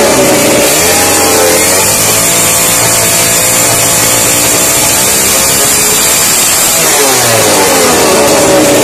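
Loud 49cc two-stroke X2 pocket bike engine revved with the choke pulled and no chain fitted, so it runs free without driving the wheel. The revs climb in the first second or so, ease back, hold steady for a few seconds, then climb again near the end.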